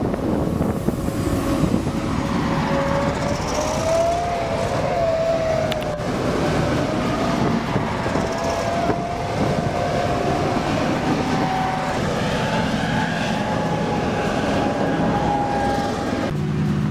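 Eight-wheeled BTR armoured personnel carriers driving past: a steady rumble of engines and tyres with a whine that slowly climbs in pitch.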